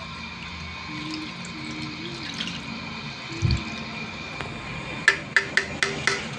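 Coconut milk pouring and dripping from a stainless steel bowl into a metal pan over whole tilapia, with a dull knock about halfway. Near the end come five sharp metallic taps in quick succession, the bowl being knocked to shake out the last of the milk.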